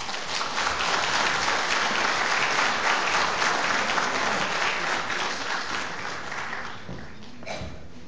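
Audience applauding, which dies away about seven seconds in.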